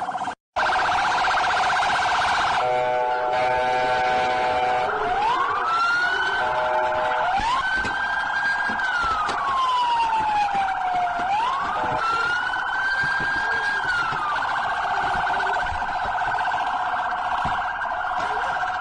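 Electronic police car siren: a fast warbling tone runs throughout, while a slow wail rises and falls twice over it, between about five and fourteen seconds. A steady horn-like tone sounds for about two seconds early on, and the sound cuts out for a moment right at the start.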